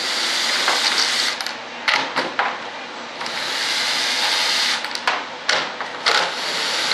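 Cordless drill running in several runs of one to two seconds as it backs screws out of a wooden rudder assembly, with short stops and clicks between runs.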